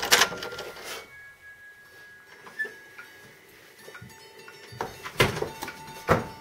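A few short clicks and knocks in a quiet room, the two sharpest about five and six seconds in, over a fading tail and faint held tones of soundtrack music.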